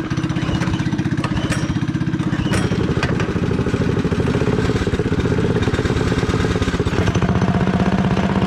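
Small minibike engines idling with a steady, pulsing putter. The engine note shifts about two and a half seconds in and again about seven seconds in.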